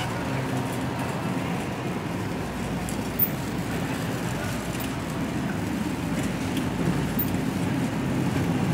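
Steady supermarket background noise, a low even rumble, with one brief click about three seconds in.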